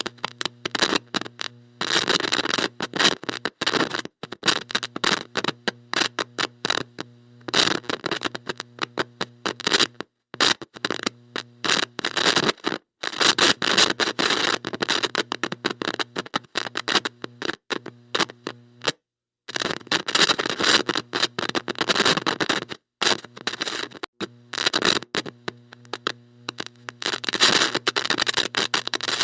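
Bad electronic connection: heavy static crackling and hissing over a low electrical buzz, cutting in and out irregularly with sudden dropouts to silence, as from a loose or faulty contact.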